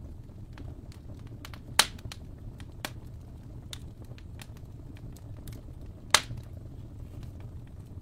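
Fireplace fire crackling: a steady low rumble of burning wood with scattered small crackles and two loud pops, one about two seconds in and one about six seconds in.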